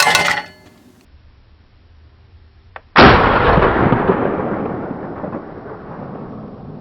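A single shotgun shot about three seconds in, its blast echoing and fading slowly over several seconds. A short, sharp loud sound comes right at the start.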